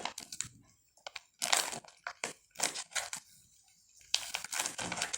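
A courier package's wrapping being handled and torn open by hand, crinkling and crunching in several irregular bursts.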